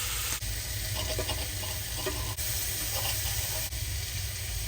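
Chicken pieces sizzling steadily as they fry in coconut oil in a pan.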